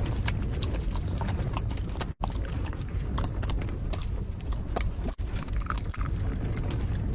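Strong wind rumbling and buffeting, with many small irregular clicks and taps scattered through it.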